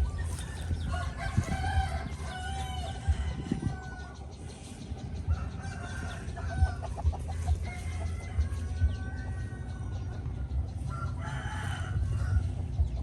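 Chickens calling: a run of short pitched calls and clucks, over a steady low rumble with occasional sharp thumps.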